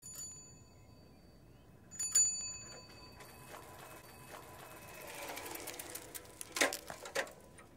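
A bicycle bell dings twice, faintly at first and louder about two seconds in, each ring holding a few high tones. A quiet rapid ticking follows, building up and ending in a few sharper clicks near the end.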